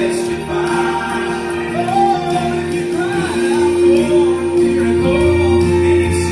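Live gospel song: a lead vocalist sings a melodic, bending line over steady acoustic guitar accompaniment and a held chord.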